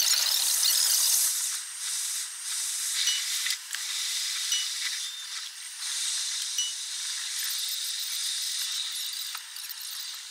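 Train running noise recorded in a locomotive cab, played back ten times too fast, so it comes out as a steady high hiss with a few short high chirps and clicks and no low rumble at all. It is loudest in the first second or so.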